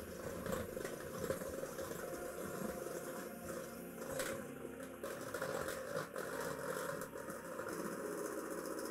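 Electric hand mixer running steadily, its two wire beaters whipping egg yolks and sugar in a glass bowl, with a few clicks of the beaters against the glass.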